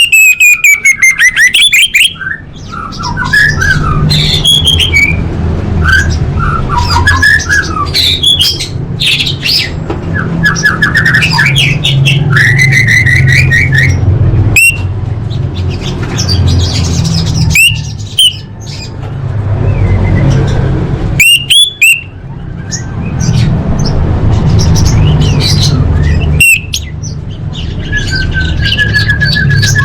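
Orange-headed thrush (anis merah) singing a long, varied song of fast trills, whistled glides and harsher notes, packed with phrases mimicked from other birds. A steady low hum runs underneath, and a few sharp clicks break in.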